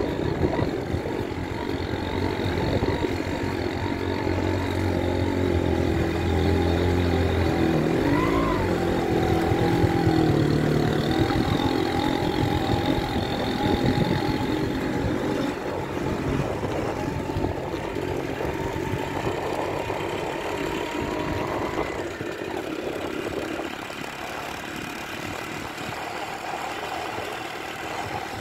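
Motorcycle engine running as the bike rides along, its note rising briefly about eight seconds in. It is loudest through the first half and eases off for the last quarter.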